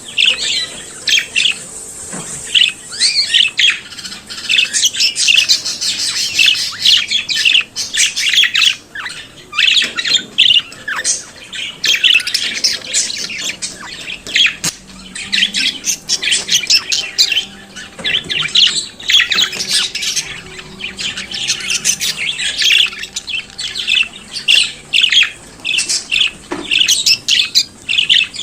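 Budgerigars singing and chattering: a continuous stream of rapid warbles, chirps and squawks.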